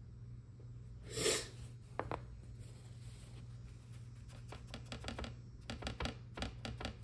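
Light clicks and taps of tools and small parts being handled on a hobby bench, with a short rustle about a second in and scattered clicks in the second half, over a steady low hum.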